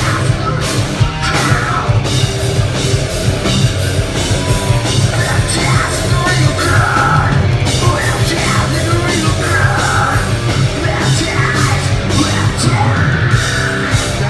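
Live hard rock band playing loud, with distorted electric guitar, bass and drum kit, and a vocalist shouting and singing into the microphone at intervals.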